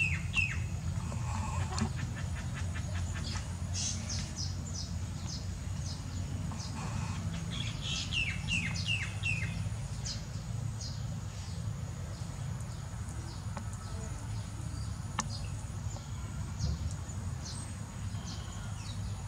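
Weaver birds chirping, with series of quick falling chirps near the start and again about eight seconds in, and scattered high ticks in between, over a steady low hum.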